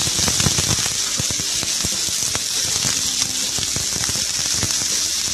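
Freshly added raw chicken pieces sizzling in hot oil with browned onions in a karahi as they are stirred: a steady hiss with many small crackles and pops of spattering oil.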